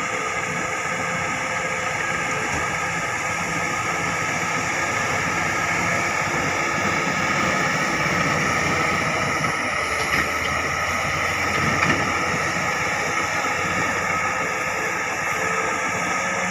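Heavy diesel earthmoving machinery running steadily, with a brief knock about twelve seconds in.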